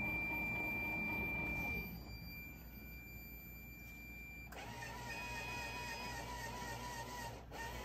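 Rotimatic Plus roti maker's motors whirring during its final check before making rotis: a steady hum with a high whine that eases off about two seconds in. A little past halfway it changes abruptly to a different steady mechanical whirr with a higher whine.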